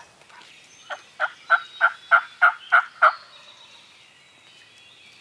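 A hunter's turkey call blown by mouth: a run of eight evenly spaced, turkey-like yelps, about three a second, lasting about two seconds.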